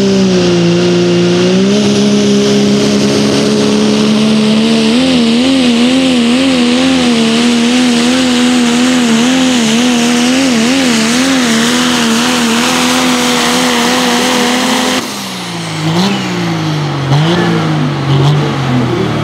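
Pro stock diesel pulling truck's engine held at high revs under load while dragging a weight-transfer sled. The pitch steps up a few seconds in and wavers up and down through the middle of the pull. About fifteen seconds in the engine drops off suddenly to lower revs, with a few blips as the run ends.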